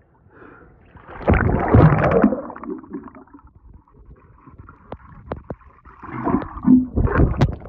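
Swimming-pool water splashing and gurgling around a phone's microphone as it goes under the surface, with two loud bursts, one about a second in and one near the end, and a few sharp clicks in between.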